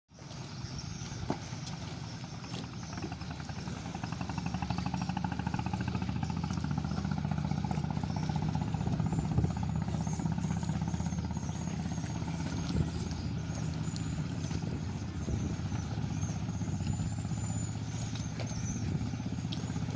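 A small engine running steadily with a low, even putter, growing a little louder over the first few seconds.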